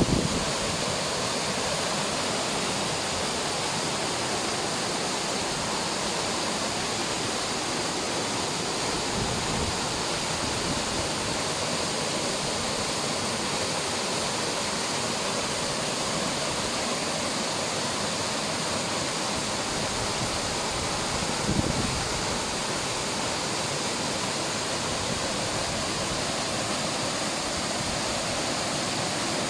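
Mountain waterfall rushing steadily, running full and turbulent after snowfall. A brief low bump about two-thirds of the way through.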